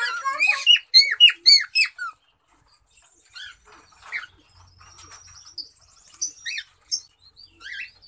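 Male cockatiel singing: a quick run of loud rising-and-falling whistled notes, about four a second, over the first two seconds, then softer scattered chirps and whistles.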